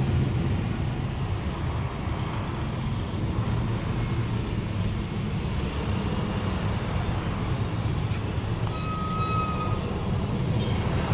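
Steady low rumble of motor vehicles, with a faint short high tone a little before the end.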